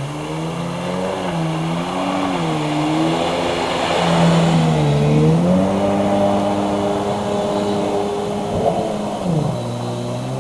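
Jet ski engine running, its pitch rising and falling several times with the throttle. It holds higher for a few seconds, then drops back near the end.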